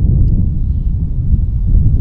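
Wind buffeting the microphone: a loud, steady low rumble with nothing above it.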